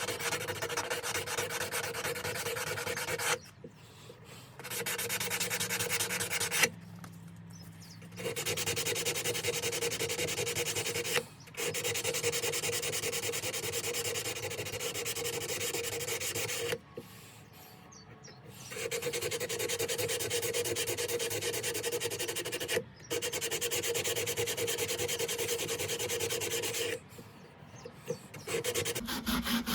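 Abrasive sanding on the hardened steel blade of a handmade knife while its edge bevel is being worked, a steady rasping rub in long runs broken by about six short pauses.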